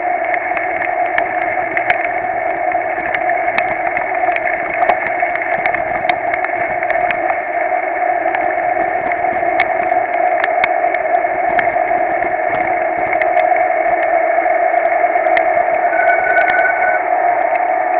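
Heavy rain and the rush of riding through it, muffled and boomy inside the camera's case, with raindrops ticking against it. A short high tone sounds about four-fifths of the way through.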